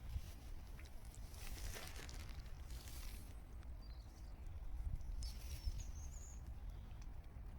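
A duck dabbling and splashing in the water with its bill, a patter of small splashes for a couple of seconds, then brief high chirps over a low steady rumble.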